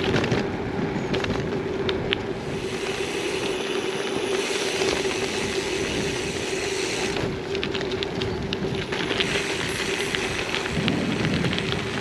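Riding noise from a gravel bike on the move: wind rushing over the microphone and tyres rolling over a rough surface, with many small clicks and crunches.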